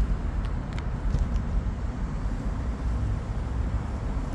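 Steady low background rumble, with a few faint light clicks in the first second.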